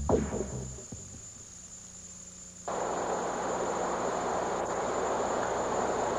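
Music dies away, then about three seconds in a steady rush of water cuts in suddenly: water gushing out of a large round drain pipe into a tunnel.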